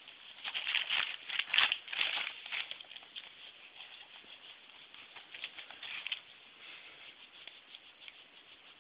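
A towel rubbing and rustling over a papillon dog's coat as she is dried, in irregular scratchy bursts that are loudest in the first few seconds and die down after about six seconds.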